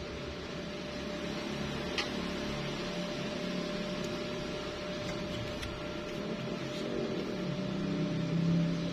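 Stick-welding arc burning steadily on a vertical joint: an even crackling hiss over a steady electrical hum.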